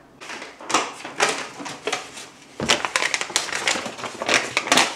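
Paper instruction leaflet rustling and crinkling as it is handled and unfolded: an irregular run of sharp crackles, busiest in the second half.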